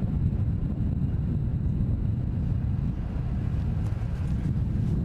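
Steady low rumbling noise with no distinct tones or strikes.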